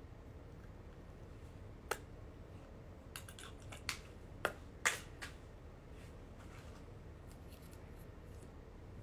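A handful of small, sharp clicks and taps close to the microphone, bunched between about two and five seconds in, over a low steady hum.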